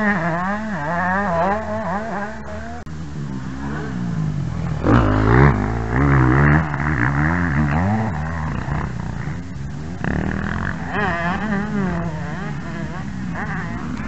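Motocross dirt bike engines revving, the pitch rising and falling quickly over and over as the throttle is worked. About five seconds in there is a louder, rougher burst.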